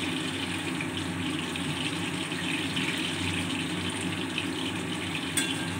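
Battered chicken pieces deep-frying in hot sunflower oil in a steel wok: a steady sizzle with fine crackling, and one sharp click near the end.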